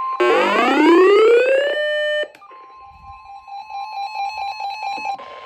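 Emergency alert attention tone, a steady high tone, cut into by a loud electronic siren that winds up in pitch, holds briefly, and stops about two seconds in. The steady tone then resumes with a fast pulsing beep beneath it.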